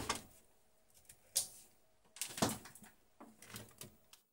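Handling noise: four or five short scraping and rustling sounds as the recording phone is moved about over the open television chassis.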